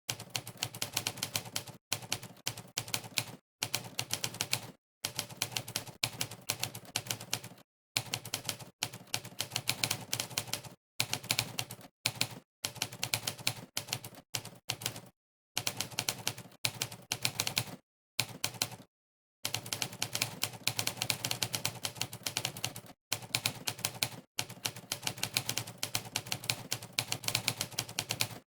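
Typewriter keystroke sound effect from a typing-test website, one clack per keypress, in quick runs of many strikes a second. The runs break off a dozen or so times for a brief moment of dead silence.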